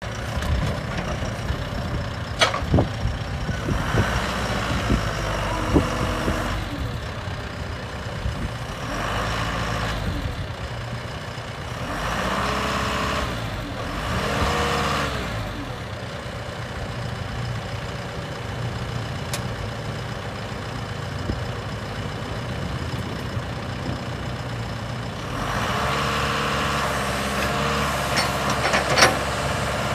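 John Deere 310L backhoe's 4.5-litre four-cylinder PowerTech diesel engine running, its speed rising and falling several times, with the longest rise near the end. A few sharp clanks come in the first several seconds.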